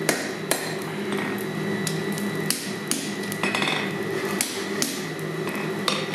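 Hand hammer striking a hot chain link on a steel anvil, about eight irregular blows, a half second to a second apart, with a quicker cluster near the middle. The blows are bending the link's scarfed ends so they overlap ready for a forge weld. A steady hum runs underneath.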